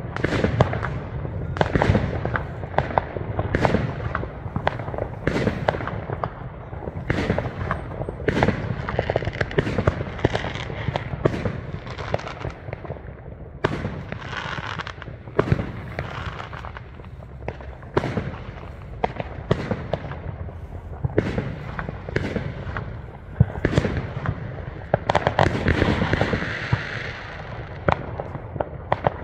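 Aerial fireworks bursting: a dense, uneven run of bangs and pops all through, with stretches of hissing crackle about halfway and again near the end.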